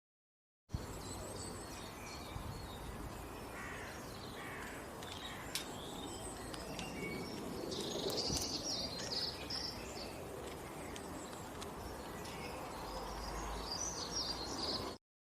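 Birds chirping outdoors over a steady background hiss: many short, high calls, with a few falling calls about four to five seconds in and a busier burst of chirps about eight seconds in. The sound starts and stops abruptly.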